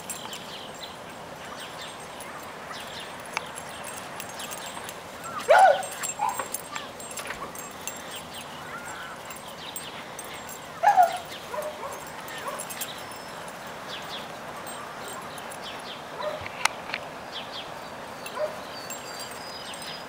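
Bird-dog puppies barking and yipping in play, with two loud barks about five and a half and eleven seconds in and softer yips between them.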